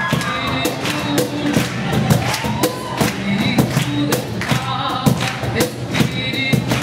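A woman singing into a microphone, accompanied by a cajón slapped by hand in a steady beat.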